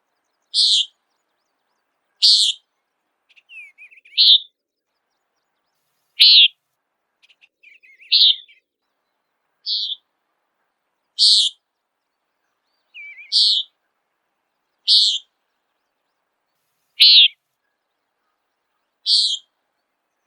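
Common nighthawk giving its nasal, buzzy 'peent' flight call, a short sharp note repeated about every two seconds, eleven times in all. Faint soft twittering notes come just before some of the calls.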